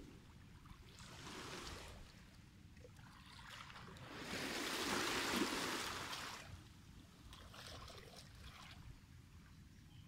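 Small sea waves washing in over a pebble-and-rock shore, with a soft rushing and trickling among the stones. The largest wash swells about four seconds in and fades over two seconds, with smaller washes before and after.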